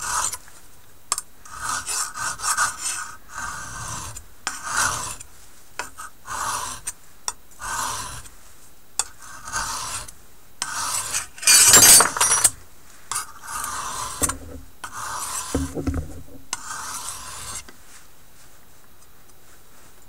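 A high-carbon steel knife blade being stroked by hand along a sharpening stone, honing the edge. It makes a long run of irregular rasping strokes, steel scraping on stone, that stop a couple of seconds before the end.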